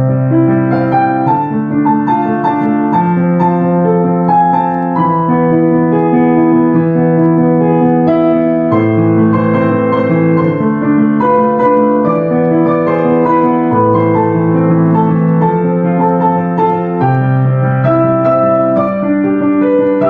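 Background piano music: slow, sustained chords and melody notes changing every second or two.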